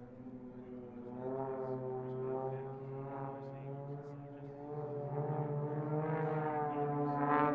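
Propeller-driven aerobatic monoplanes (Extra and Edge 540) flying overhead in formation, their piston engines and propellers giving a steady droning hum with slowly drifting pitch. It grows louder about a second in and again toward the end as the planes come closer.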